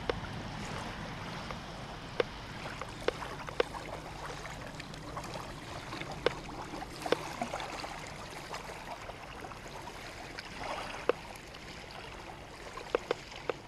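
Small waves lapping at the loch shore: a steady wash with irregular sharp plops and clicks.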